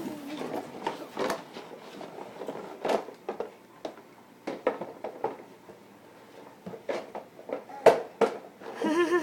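Irregular light knocks and clatter from a toddler's toy push lawn mower being handled and pushed about.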